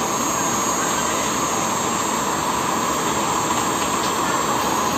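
Hot-air blower running steadily, an even rush of air with a faint high whine, heating the edges of a phone screen to soften its adhesive.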